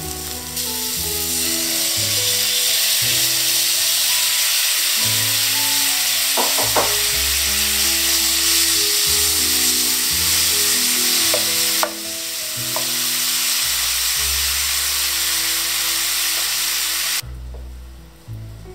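Hot oil sizzling hard in a frying pan as thick daikon radish steaks fry and then a miso-koji sauce is stirred in. A few sharp clicks of a spatula against the pan come through. The sizzle cuts off suddenly near the end.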